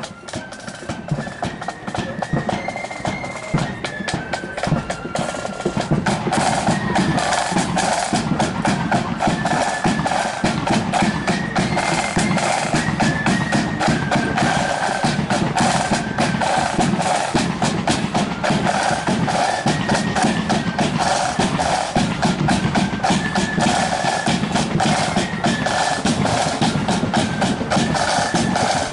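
Marching flute band playing a march: flutes carry the melody over rattling snare drums and a bass drum. The band grows louder over the first six seconds, then holds steady.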